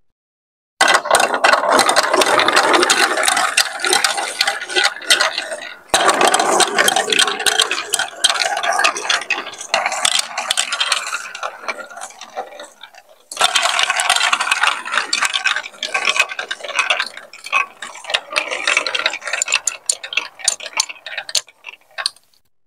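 Plastic balls rolling and clattering down the plastic chutes of a building-block marble run, a dense rolling rattle full of clicks as they knock against the curves and each other. It comes in three runs, starting about a second in, about six seconds in and about thirteen seconds in. Each run starts loud and thins out as the balls reach the end.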